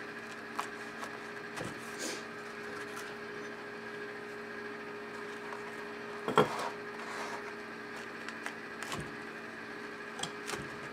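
Chef's knife cutting pita bread into wedges on a wooden butcher-block board: a handful of short knocks of the blade on the wood, the loudest about six seconds in, over a steady background hum.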